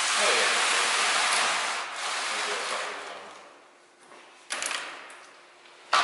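A steady hiss lasting about three and a half seconds, then sharp knocks of metal capacitor cans on a steel table, once past the middle and again at the end.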